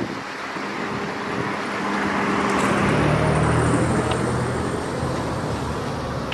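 Road traffic noise, swelling as a vehicle passes about two to four seconds in.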